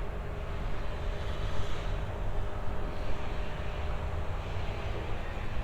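Steady low rumble of outdoor urban background noise, with no distinct event standing out.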